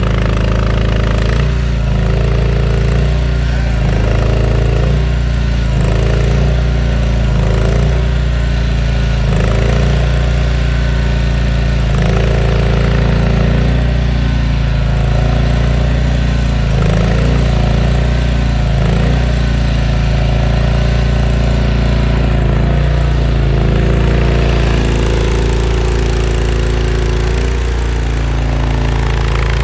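Land Hero mini skid steer engine running steadily, its pitch wavering every second or two.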